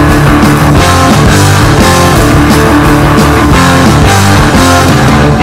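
Loud guitar-led rock music, with electric guitar and bass over a steady beat.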